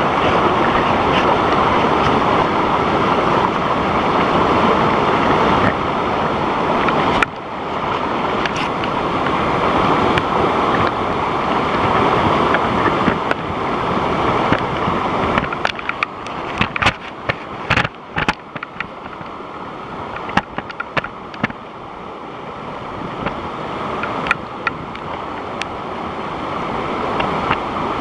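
Waterfall rushing: a steady, loud noise of falling water that fades and swells as the microphone moves. There are scattered sharp clicks and knocks about halfway through.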